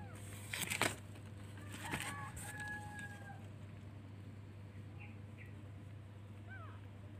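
Newborn kittens mewing in thin, short rising-and-falling cries, with a short loud burst of rustling about half a second in. About two seconds in, a rooster crows in the background, ending on a long held note.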